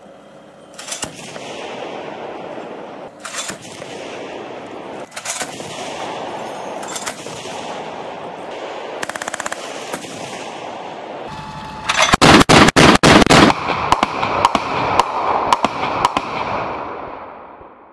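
Gunfire from an armoured vehicle's 30 mm autocannon: single shots about every two seconds over a steady noise, then a loud rapid burst of about eight rounds around twelve seconds in, followed by more single shots a little over half a second apart.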